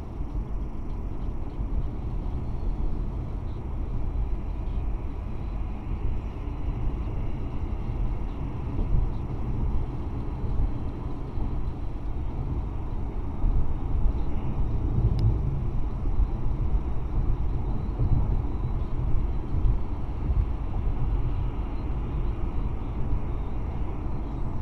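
Road noise inside a moving car, picked up by a windshield dashcam: a steady low rumble of tyres and engine at road speed. A faint click comes about fifteen seconds in.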